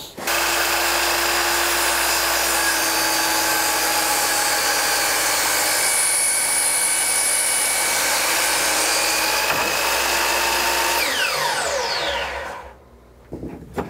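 DeWalt 12-inch sliding compound miter saw running at full speed for about eleven seconds while cutting two stacked 2x4s. The trigger is then released and the motor and blade spin down with a falling whine.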